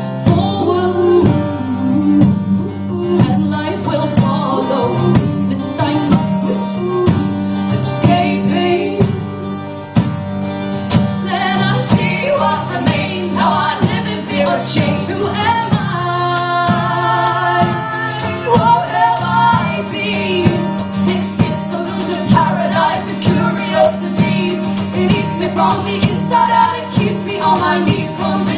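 A live folk song: women singing over strummed acoustic guitar, the strokes coming in a steady rhythm.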